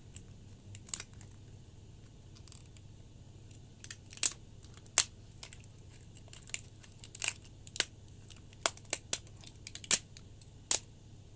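Small plastic gift packaging being handled and worked open by hand: a series of sharp clicks and snaps, about nine, mostly in the second half, with faint crinkling.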